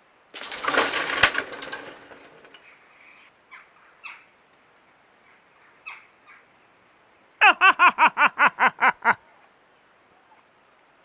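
Domestic cats squaring off. A loud hissing outburst comes about half a second in and fades over a second or so, followed by a few short faint sounds. Then, near the end, comes a quick run of about ten short pitched calls, about six a second.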